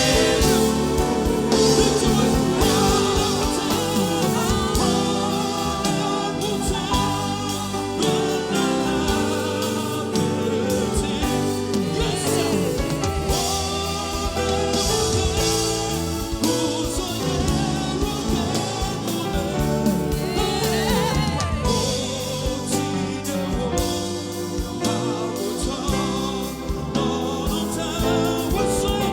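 Live gospel music: a vocalist sings with instrumental accompaniment, with what may be backing voices.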